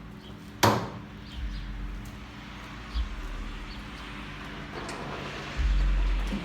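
A single sharp clunk just over half a second in, a lighter knock about two seconds later, and a low rumble near the end.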